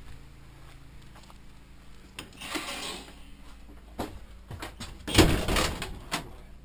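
Portable toilet's plastic door opening with a scrape, then closing on its spring about five seconds in, which is the loudest sound, with a few sharp clicks of the latch and door around it.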